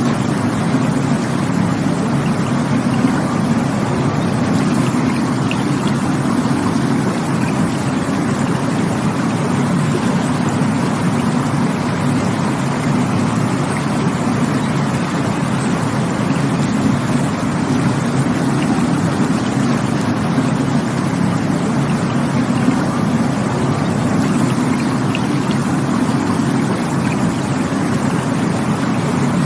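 Rushing water flowing steadily, a continuous low, full rush with no breaks or changes in level.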